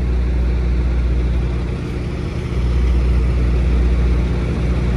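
Heavy wrecker's diesel engine running steadily with a deep hum, growing louder about halfway through.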